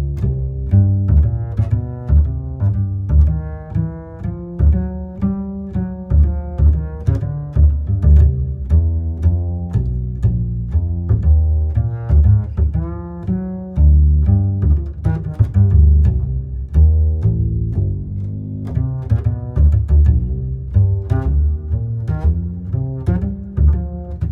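Background score of low strings: double bass and cello playing a plucked, rhythmic line with bowed melody notes above.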